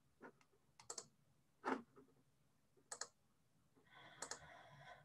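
Faint computer mouse clicks, several in quick pairs, spaced about a second apart, as a PowerPoint slideshow is set up for screen sharing.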